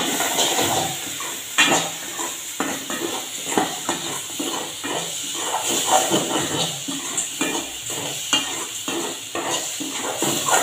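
A metal spoon scraping and stirring through sautéing onion, tomato and dried fish in a metal pot, in quick repeated strokes, over a steady sizzle of the food frying in oil.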